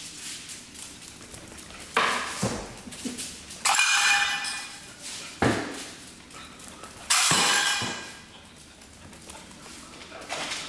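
A small metal cowbell on a strap clanking loudly as a Labrador puppy shakes and swings it about, four sharp clanks, one of them about four seconds in ringing on briefly.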